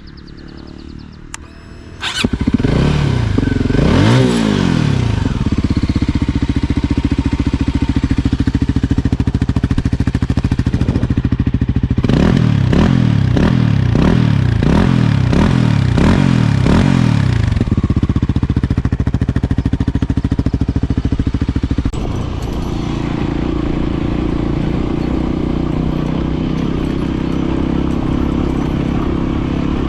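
Voge 300 Rally's single-cylinder engine catching about two seconds in, revving, then running, with a quick series of about six throttle blips in the middle before settling to a lower, steady note near the end.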